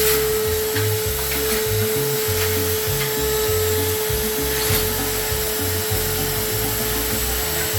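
A vacuum cleaner runs steadily with a constant motor whine, sucking up demolition dust and debris, with a few faint ticks. Music with a low bass line plays underneath.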